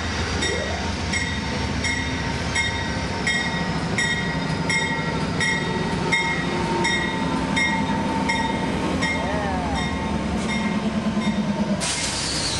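Locomotive bell ringing steadily about twice a second over the low running of Amtrak P42DC diesel locomotives. Near the end a sudden hiss of air starts.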